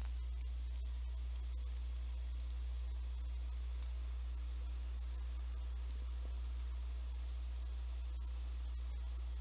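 Faint scratching and light taps of a stylus on a graphics drawing tablet, over a steady low electrical hum.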